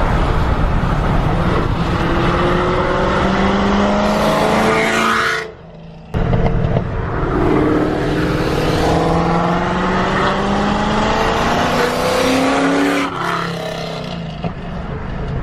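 Supercharged Ford Coyote 5.0 V8 in a Mustang accelerating hard in two long pulls, its engine and supercharger pitch rising steadily. The first pull cuts off abruptly about five seconds in, and the second runs from about seven to thirteen seconds in.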